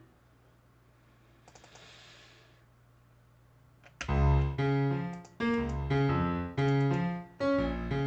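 Near silence for about four seconds, then a sampled grand piano in Scaler 2 starts playing a brisk run of minor-key chords, one struck about every two-thirds of a second.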